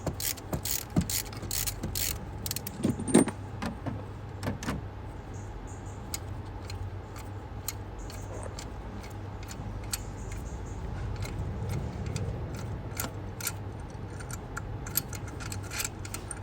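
Hand tools clicking and clinking on metal, a ratchet and socket working loose a tight spark plug on a Nissan 1.2 petrol engine. The clicks come thick in the first few seconds, then sparse, over a steady low hum.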